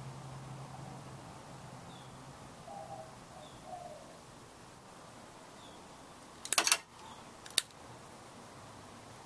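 Supreme Fans JCSB-52 ceiling fan motor humming low and fading away over the first couple of seconds, then two sharp clicks about a second apart, with faint chirps in the background.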